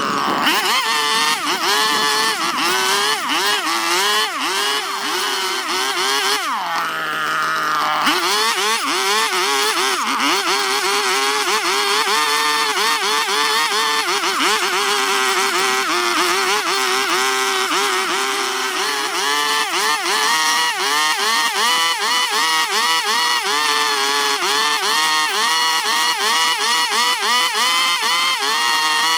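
Chainsaw cutting into wood, its engine pitch dipping and rising again and again as the chain bites and frees. About seven seconds in it drops briefly to a low idle before revving back up.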